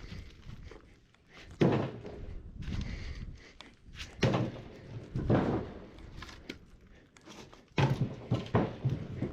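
Chunks of firewood from a cut-up tree thudding as they are tossed down, a series of heavy knocks, with a quick run of four near the end.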